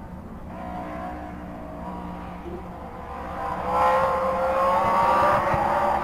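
BRM V16 racing car's 1.5-litre supercharged V16 engine running under acceleration. Its high, multi-toned engine note is quieter at first, then from about halfway through grows much louder and climbs steadily in pitch.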